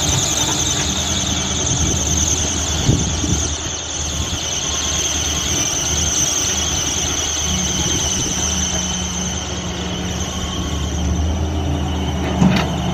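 Backhoe loader at work digging and loading soil, its diesel engine running under a steady high-pitched squeal that drifts slowly lower in pitch. A knock about three seconds in and a louder one near the end.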